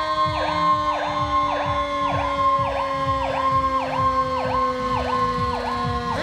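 Fire truck's electronic siren sounding in a rapid repeating pattern, its tone dropping sharply and snapping back about twice a second. Under it a steady lower tone slides slowly down in pitch.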